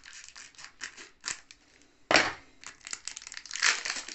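Scissors cutting open a foil Pokémon card booster pack, the wrapper crinkling and crackling, with a loud crackle about two seconds in and another near the end.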